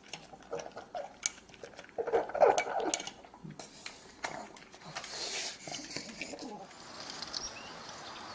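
An animal making short odd sounds, loudest about two to three seconds in, among small clicks and knocks.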